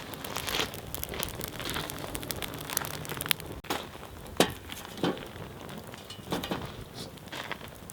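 Wood bonfire crackling, with irregular sharp pops and snaps among a constant fine crackle.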